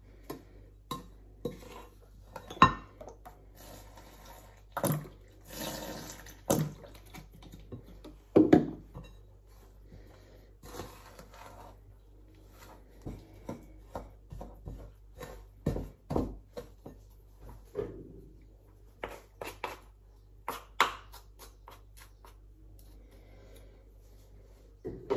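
Wooden spoon stirring and scraping a dry, crumbly biscuit mix in a ceramic mixing bowl, with irregular knocks of the spoon against the bowl and short scrapes; the sharpest knocks come about 3 and 8 seconds in.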